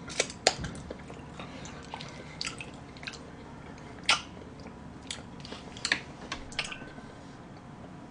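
Close-up chewing of chocolate cake with a hard white icing shell, with irregular sharp clicks and crackles from the mouth as it is eaten.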